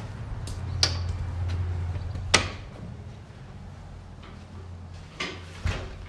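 A door being opened and shut as someone passes through: a sharp click about a second in, a louder latch clunk after about two seconds, and two more knocks near the end. Under them runs a low hum that drops away after the loud clunk.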